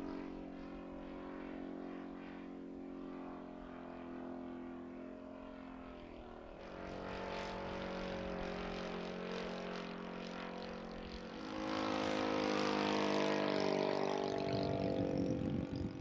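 Engine and propeller of a radio-controlled scale Junkers Ju 87 Stuka model droning steadily in flight. The engine rises in pitch and loudness about six seconds in and again, louder, about eleven seconds in, then wavers and falls away near the end.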